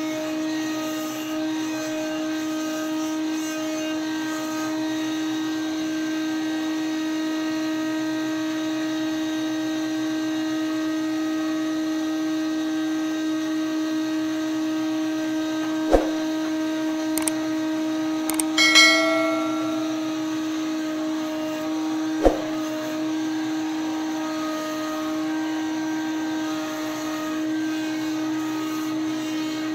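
Cleereman Lumber Pro thin-kerf band sawmill running with a steady humming tone while it saws a log on the carriage. Past the middle come two sharp knocks about six seconds apart, with a brief ringing metallic clank between them.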